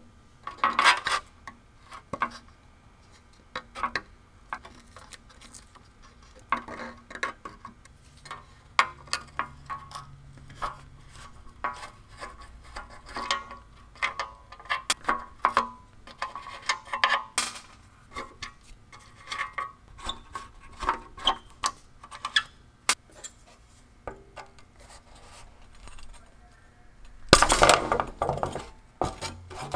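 Brass saw screws and nuts being worked out of a hand saw's wooden handle and set down on the bench: scattered small metallic clinks and clicks, with a louder burst of clatter near the end.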